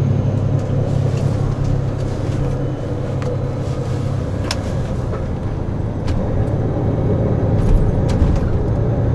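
Tour coach running on the road, heard from inside the passenger cabin: a steady low engine drone with road noise, and a few light clicks or rattles about halfway through and near the end.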